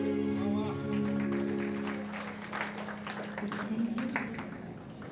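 The song's last held instrumental chord dies away over about two seconds, then the audience applauds.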